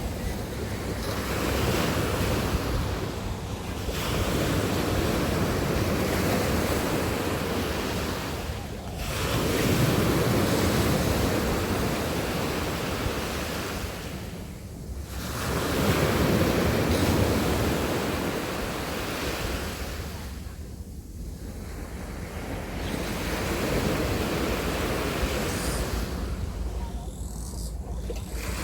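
Sea waves breaking and washing up a beach, the rush swelling and falling back about every six seconds. Wind buffets the microphone underneath with a low rumble.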